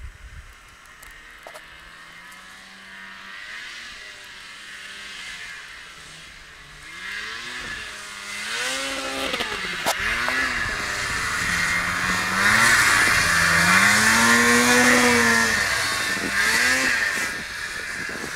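Snowmobile engine revving up and down as the sled rides through deep snow. It is faint at first, grows much louder as it comes close, is loudest a little past the middle, and then falls away somewhat as the sled moves off.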